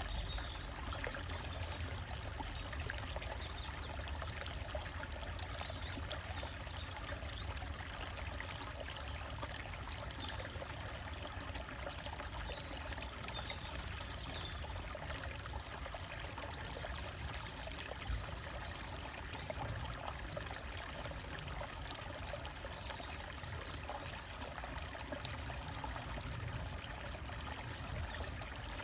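Small forest stream running steadily, water trickling over rocks.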